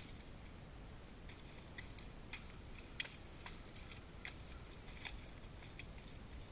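Pollaxes and plate armour clashing as two armoured fighters trade blows: an irregular run of sharp clacks and metallic clinks, a dozen or more, the sharpest about three seconds in.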